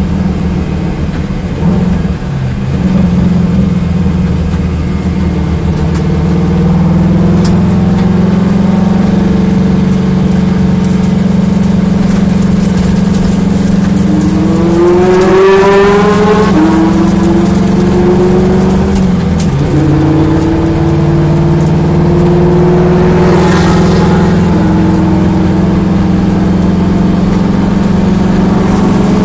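Corvette engine running steadily with a loud low hum, its pitch rising twice, about halfway through and again later, then settling back. This is the engine the video's title says is misfiring.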